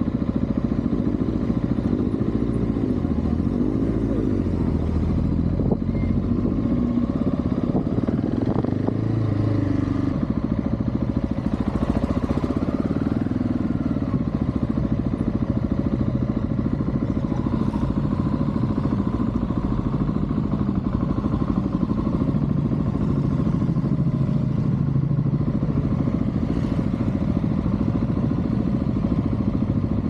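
Motorcycle engine heard from the rider's seat, running at low revs while ridden slowly, rising and falling in pitch a few times as the throttle is opened and eased in the first ten seconds.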